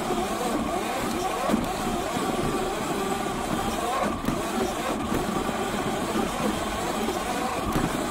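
Sur Ron X electric dirt bike ridden hard at full throttle: a steady electric motor and chain-drive whine that wavers in pitch with speed, under a constant rush of wind and tyre noise on the dirt trail.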